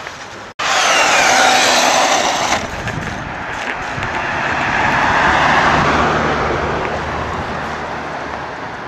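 Whine of a Savage 5.9 XL RC truck's Flux brushless electric motor and drivetrain at speed, its tones falling, for about two seconds after a brief cutoff. This is followed by a steadier rushing noise with a low hum that swells and then fades.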